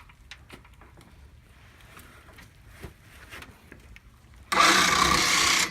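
Electric winch, powered from a car battery, starting up suddenly near the end and running at a steady pitch for about a second as it hoists a log; a few faint knocks come before it.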